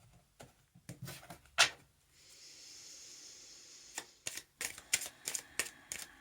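A deck of oracle cards being shuffled by hand: a series of sharp clicks and snaps, one loud slap about one and a half seconds in, a steady hiss of cards sliding over each other for a couple of seconds, then quick snapping flicks of the cards.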